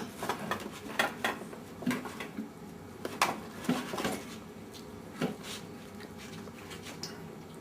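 Plates and cutlery clinking and knocking on a dinner table: a handful of scattered light taps that thin out after about five seconds.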